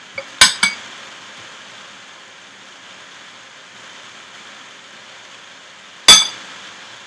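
Two sharp clinks of a utensil against a dish, one about half a second in and one about six seconds in, each with a short ring; a faint steady hiss in between.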